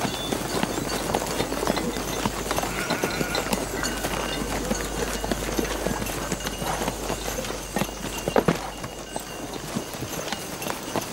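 Hooves of several horses clip-clopping at a walk on a dirt track, with a few louder strikes about eight seconds in.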